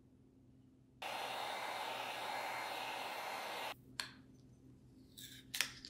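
Heat gun blowing hot air in a steady loud hiss that starts about a second in and cuts off abruptly; then a click, and near the end the paper label crackling and tearing as it is peeled off the glass bottle.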